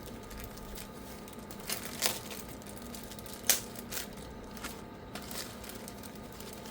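Plastic packaging crinkling around a replacement laptop keyboard as it is handled, with a few sharp clicks and crackles.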